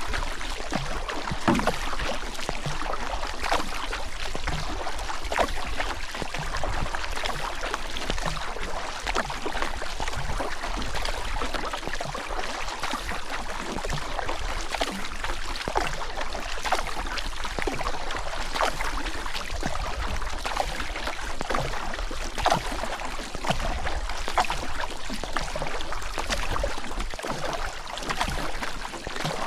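Turbulent river water rushing steadily, with many small, irregular splashes throughout and a constant deep rumble underneath.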